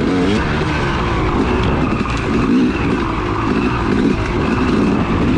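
Yamaha YZ250X 250cc two-stroke dirt bike engine riding a trail. It revs up and down over and over as the throttle is worked, heard from the bike itself.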